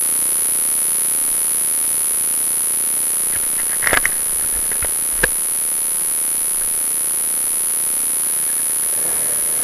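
Steady hiss with a thin high whine over it, the recording noise of a helmet-mounted camera. A few sharp clicks come about four seconds in, and one more a second later.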